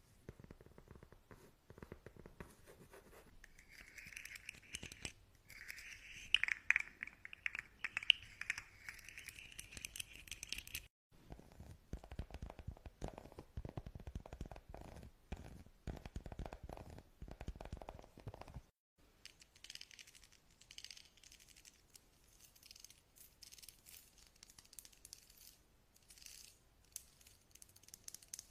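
Close-up scratching and crinkling of handled objects, in several changing passages: a crackly, higher-pitched stretch first, then dense low scratching strokes, then lighter brighter scratches.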